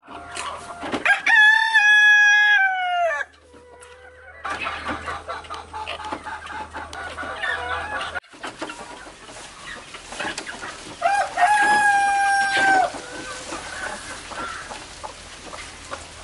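A rooster crowing twice, each crow a long held call that falls away at its end, the second coming about ten seconds after the first. Chickens cluck in between.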